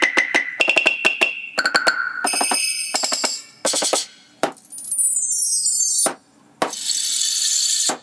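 Percussion samples from a Roland SPD-SX sampling pad played with drumsticks. A quick run of ringing pitched hits opens, then bar chimes swept downward in a falling cascade, and near the end a sustained rain-stick hiss.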